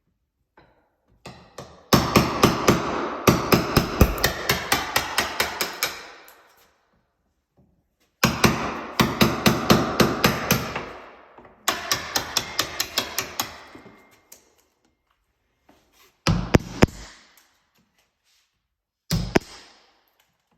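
Hammer blows struck in quick runs of about four a second, each strike ringing briefly: two long runs, then a few short ones near the end.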